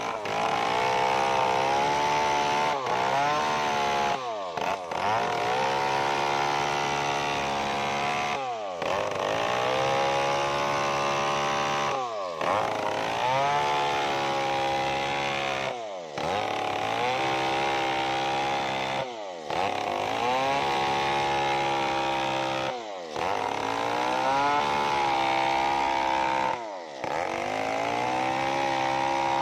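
Stihl chainsaw with a long bar running at high revs while cutting through a waru log. Its engine note drops and climbs back every three to four seconds, with short breaks.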